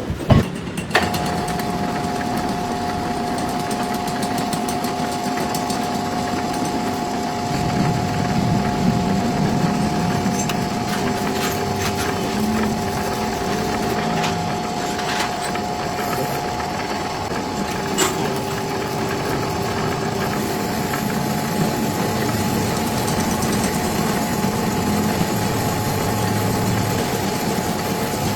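A workshop machine running steadily with a constant whine and a noisy rumble, with a few sharp ticks; it starts about a second in.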